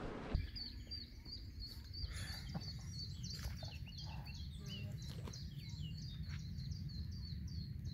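Duckling peeping: a long run of short, high peeps, several a second, each falling in pitch, over a low steady rumble of wind on the microphone.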